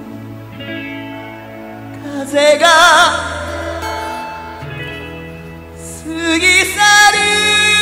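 Slow ballad music: held chords with a melody line carrying a wide vibrato, swelling about two and a half seconds in and growing louder again near the end.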